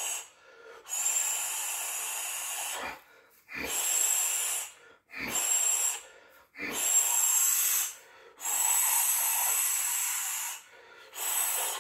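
A man's forceful hissing breaths, blown out through the teeth, about six of them, each lasting one to two seconds with short pauses between.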